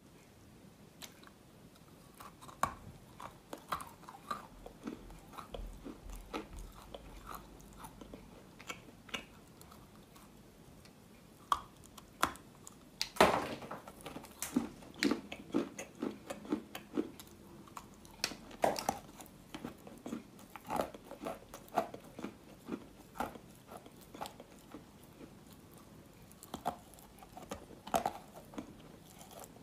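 Wet chalk being bitten and chewed close to the microphone: sharp crunches as pieces are bitten off, with crumbly chewing crunches between them. The loudest bite comes about 13 seconds in, followed by a steady run of chewing at two to three crunches a second.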